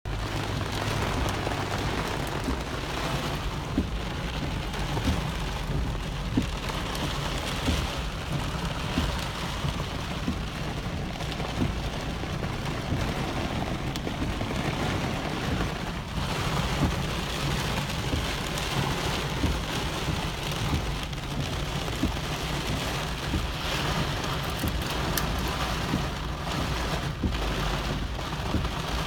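Heavy rain in a thunderstorm, a steady rush with many individual drops hitting a hard surface close by, over a constant low rumble.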